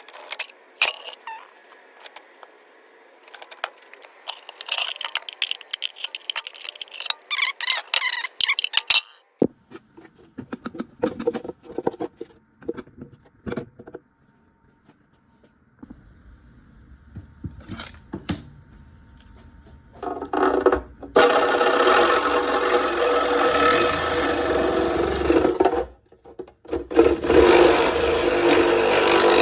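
Small parts and wiring being handled and fastened, with quick clicks, rattles and scrapes, then a few scattered clicks. From about 20 seconds in a loud, steady noise sets in, cuts out briefly about 26 seconds in, and resumes.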